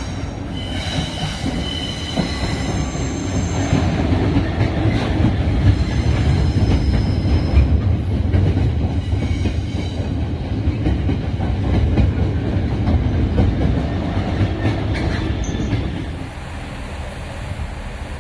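Class 66 diesel freight locomotive passing at low speed with a train of tank wagons: engine running under a heavy rumble of wagon wheels on the rails, with high-pitched wheel squeal in the first few seconds and again about eight to ten seconds in. The rumble eases about sixteen seconds in.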